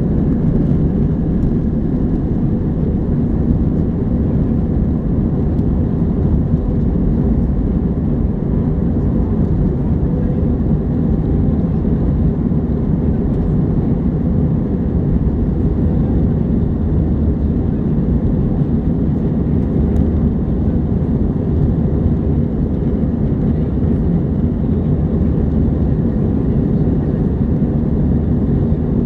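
Steady low roar of an Airbus A321's jet engines and airflow heard from inside the passenger cabin, running evenly without change.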